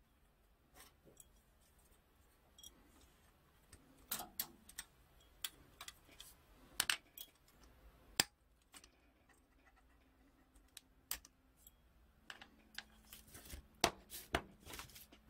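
Hobby side cutters snipping orange plastic wheel parts free of a model kit's runner: scattered sharp clicks, several of them close together. Near the end, a few more clicks and taps as the freed parts are handled.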